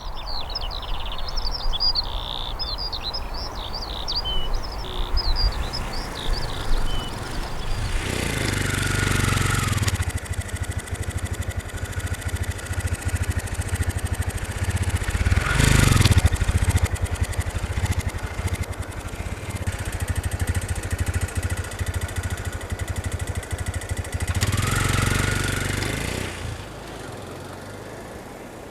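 Outdoor street ambience: birds chirp over a low rumble of traffic, then vehicles drive past three times, each pass swelling and fading with a falling engine tone, the middle pass the loudest.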